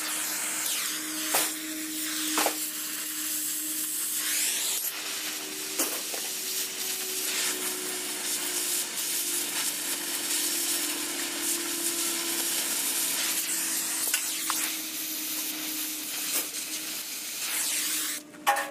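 A machine running with a steady hum under a loud hiss, with scattered clicks and knocks, cutting off abruptly near the end.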